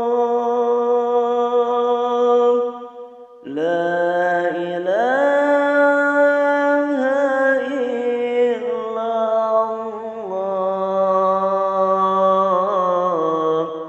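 A man's voice singing an Arabic devotional sholawat in long held, drawn-out notes, with a short breath pause about three seconds in and the voice gliding up in pitch soon after.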